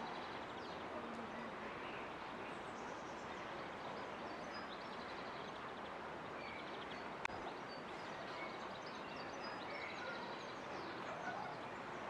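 Shallow mountain stream running steadily over stones, with songbirds chirping and trilling faintly in the background. A single brief click about seven seconds in.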